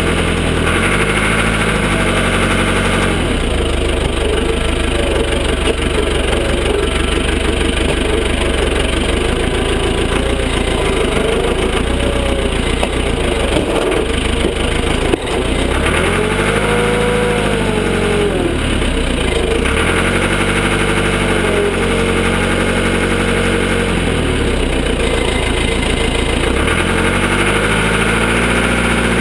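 Cat 416 backhoe loader's diesel engine running steadily, its pitch rising and falling back several times as it is throttled up under working load, notably about a second in, around the middle, and again near the end.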